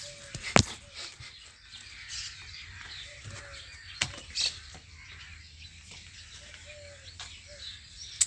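Birds chirping, with repeated short gliding chirps. Two sharp knocks stand out, the louder one about half a second in and another about four seconds in.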